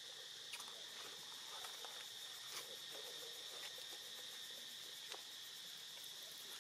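Steady, high-pitched drone of insects, with a few faint clicks scattered through it.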